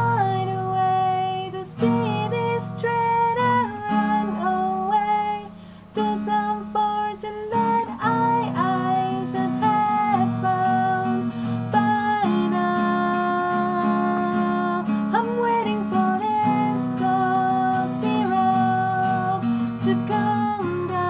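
Acoustic guitar strummed, with a voice singing a melody of held, sliding notes over it.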